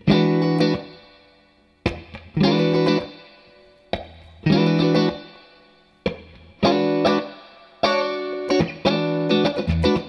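Squier Bullet Stratocaster electric guitar played through a Fender Hot Rod Deluxe valve amp, on the in-between pickup setting between the neck and middle pickups. Chords are struck about every one to two seconds, often a short hit followed by a chord that rings and fades.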